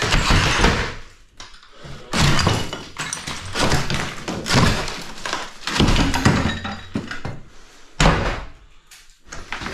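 Tiled wall sheeting being pulled and broken off a steel stud frame, pieces and rubble falling: a handful of loud, irregular breaks and impacts with short gaps between.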